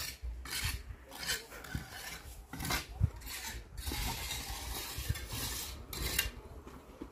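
Footsteps crunching and scuffing on a sandy dirt floor, an uneven series of short gritty steps.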